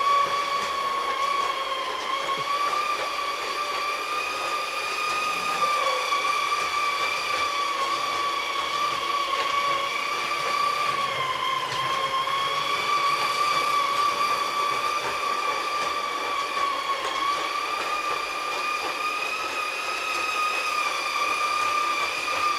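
LGB G-scale model locomotive running round its track: a steady electric motor and gear whine, its pitch dipping slightly three times.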